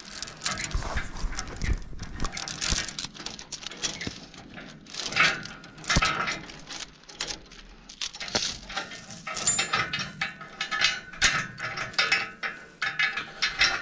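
Metal chain being unhooked and pulled free, its links clinking and rattling in irregular clanks.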